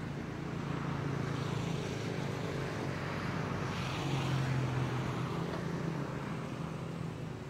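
A motor vehicle passing: a steady low engine hum with a rushing noise that swells to a peak about four seconds in and then fades.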